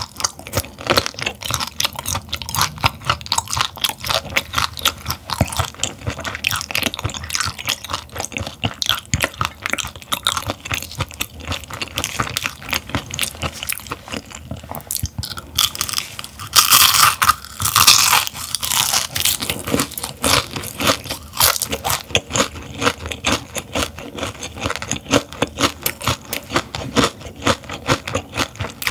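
Close-miked chewing and crunching of whole grilled gizzard shad, bones and all: a dense, steady run of crunches, louder for a few seconds just past halfway.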